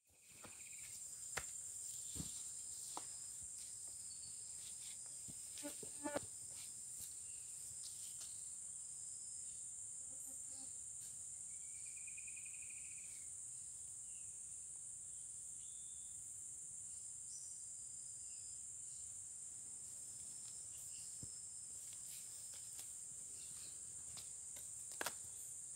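Steady high-pitched insect chorus droning without a break, with a few faint clicks scattered through and one brief call about halfway through.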